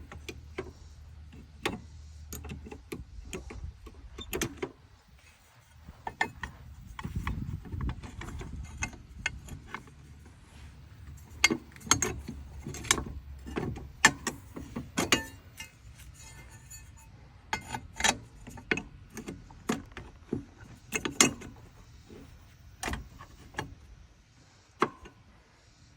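Hand tools and metal parts clinking and knocking on a walk-behind mower's belt drive, in irregular sharp clicks and taps, some louder than others, with a short low rumble about seven seconds in.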